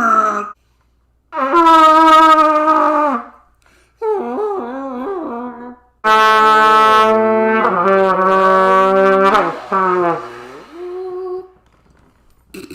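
Trumpet blasts played as elephant trumpeting: four long, wavering notes that bend in pitch, the loudest about six seconds in, where a second trumpeting sound joins it.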